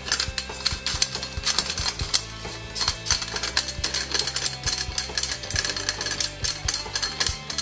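Rapid metallic clicks, clacks and knocks of a DRD CDR-15 breakdown AR-15 rifle being assembled by hand, parts being seated and pins and levers worked, over steady background music.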